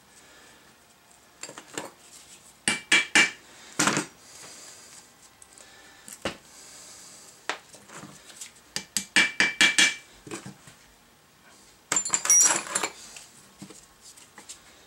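Steel punch struck with a hammer against a rusty Datsun truck front suspension arm, to drive out its pins: several groups of sharp metallic taps, some of them ringing, with pauses between them.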